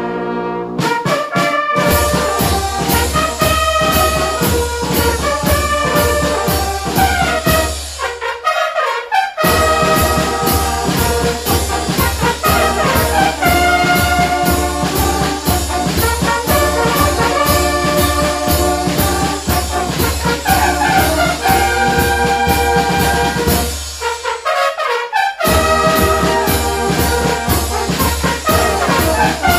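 Upbeat dance music with a steady beat and a brass horn melody. The bass and beat drop out briefly twice, about eight seconds in and again about twenty-four seconds in.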